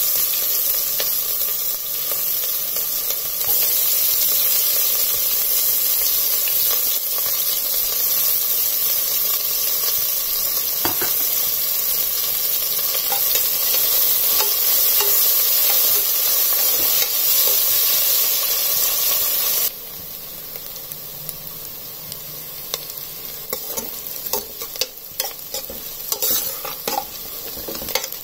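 Sliced onions frying in hot oil with whole spices, a steady loud sizzle. About two-thirds through, the sizzle suddenly drops to a quieter level, and short taps and scrapes of stirring against the pan follow near the end.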